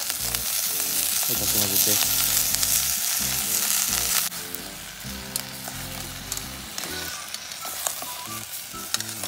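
Bacon sizzling as it fries in a pot over a wood fire, stirred with tongs. The sizzle is loud for about four seconds, then drops suddenly and goes on more quietly.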